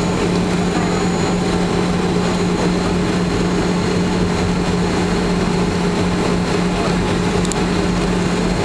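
Boeing 737-500's CFM56 jet engines running at taxi power, heard inside the passenger cabin: a steady drone with a constant low hum.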